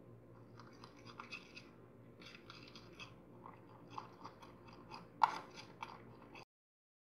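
Faint scraping and light clicks of a small spoon stirring baking soda into batter held in a larger spoon, with one sharper clink about five seconds in. The sound cuts off suddenly near the end.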